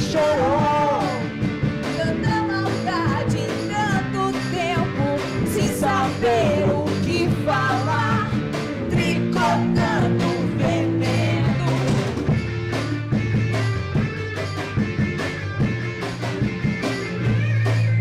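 Live rock band playing a song: electric guitar, bass and drums with a wavering, bending lead melody over a steady beat, with no sung words.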